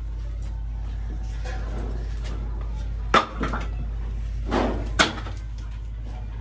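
Two sharp knocks, about two seconds apart, from work inside a large tractor tyre as a threaded steel rod and a sack are set in place. A steady low hum runs under them.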